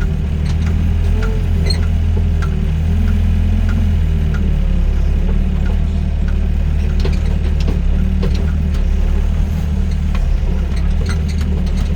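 Doosan DX55 mini excavator's diesel engine running steadily, with scattered light clicks and knocks over it.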